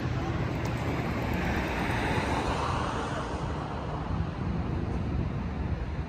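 Street traffic noise: a vehicle passing, its sound swelling about two seconds in and fading away by about four, over a steady low rumble.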